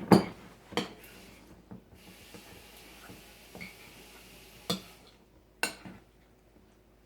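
Household handling sounds: a few sharp knocks and clatters, like things set down or bumped on a table, with a steady hiss for about three seconds in the middle.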